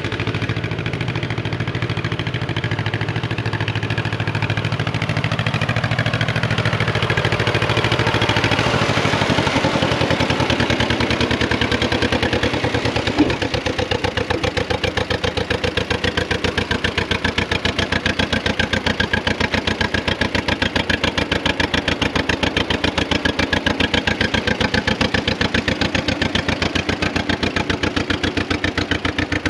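John Deere M tractor's two-cylinder engine running with a rapid, even firing beat, growing louder over the first ten seconds as the tractor drives up. A single sharp click comes about halfway through.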